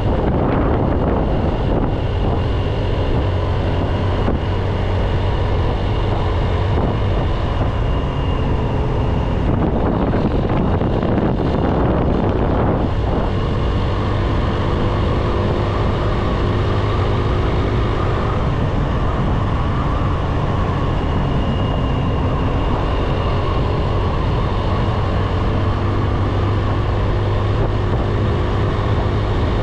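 Motorbike engine running steadily while riding, with wind noise on the microphone.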